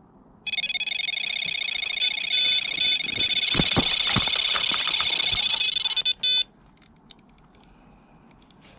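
Carp bite alarm sounding one continuous high electronic tone for about six seconds as a fish takes line on a run, cutting off suddenly, then one short beep. A few low knocks sound under it midway.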